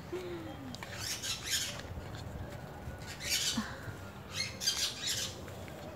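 Several short scrapes of a metal spoon against a pan, scooping melted chocolate.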